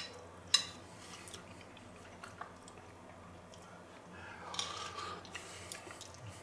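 A person eating stew with a metal spoon from a ceramic plate: a sharp clink of spoon on plate about half a second in, then chewing and mouth noises, with a louder stretch around four to five seconds in.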